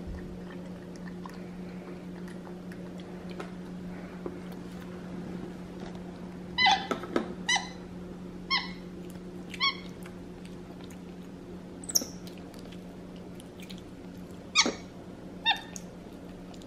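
White-faced capuchin monkey giving short, high squeaks while it eats, a cluster of them about seven seconds in and a few more scattered toward the end.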